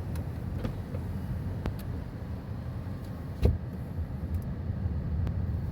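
Steady low rumble of a car's road and engine noise heard from inside the cabin while driving, with a few faint clicks and one sharp thump about three and a half seconds in.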